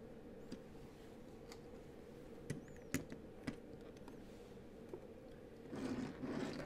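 LEGO bricks being pressed onto a train car: a handful of sharp plastic clicks spread out, the loudest about three seconds in, then a short rustle of the model being handled near the end.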